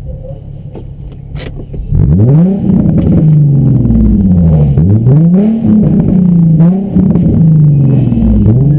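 Car engine revved hard again and again, its pitch climbing and dropping about half a dozen times, starting about two seconds in after a quieter opening.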